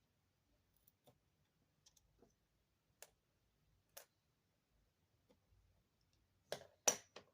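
Small sharp clicks and taps of hand tools and parts against an opened iPhone and the work table, a few spread out at first, then a louder quick cluster near the end.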